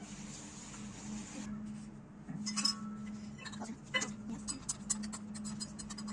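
Small metal spoon clinking against a miniature stainless-steel pot while stirring cashews in ghee. There are a couple of sharp clinks, the first with a short metallic ring, then a quick run of light taps and scrapes near the end, over a steady low hum.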